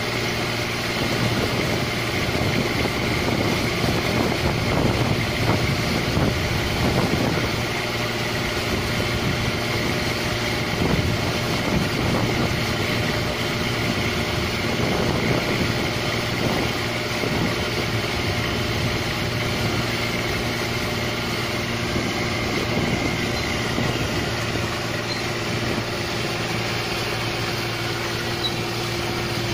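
Rice combine harvester's diesel engine running steadily under load while it cuts paddy, a little louder and rougher in the first half.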